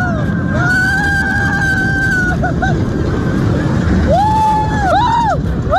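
Roller coaster riders screaming in long held yells, the later ones rising and falling in pitch, over a steady rush of wind and train rumble on the phone's microphone.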